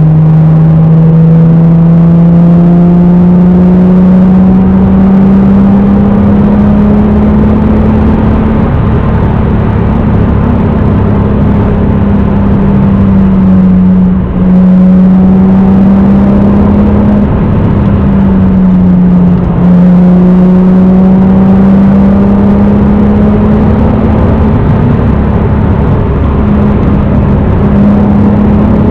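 Naturally aspirated 1993 Toyota Supra's 3.0-litre 2JZ-GE straight-six with aftermarket exhaust and K&N cold air intake, running under steady cruising load. Its note climbs slowly over the first several seconds and dips briefly twice partway through.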